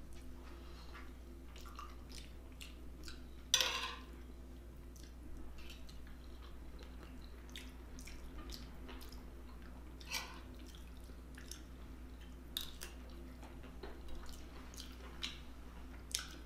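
A person chewing food close to the microphone, with many small wet mouth clicks and smacks and a louder eating noise about three and a half seconds in and again about ten seconds in.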